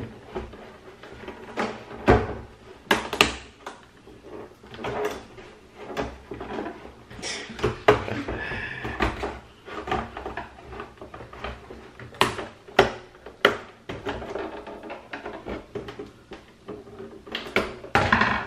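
Plastic case of a Philips 243V5LHAB LCD monitor being pried apart by hand and screwdriver: irregular sharp clicks and snaps of the bezel clips and panel, with scraping and creaking of plastic in between.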